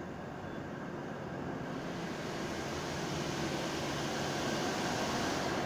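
Double-headed diesel locomotives of an express passenger train approaching along the platform, their engine and running noise growing steadily louder, with a rising hiss from about two seconds in.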